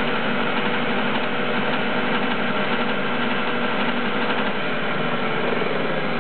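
Clausing lathe's spindle and belt drive running steadily at about 930 rpm under a variable frequency drive set to 60 Hz. Near the end the motor's pitch begins to drop as the drive ramps down toward a lower frequency.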